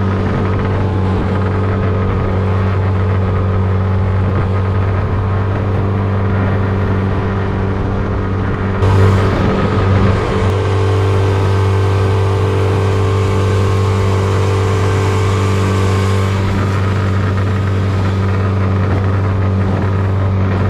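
Outboard motor of a small jon boat running steadily under way. About nine seconds in there is a brief louder rush of water noise, and a hiss of spray carries on for several seconds as the boat runs through waves.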